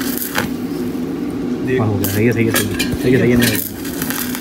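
Electric arc welding on the steel tube of a bicycle frame: the arc crackles and hisses steadily with sharp pops, over a steady low hum.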